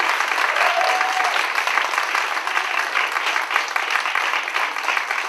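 Theatre audience applauding steadily, a dense clapping from the whole house.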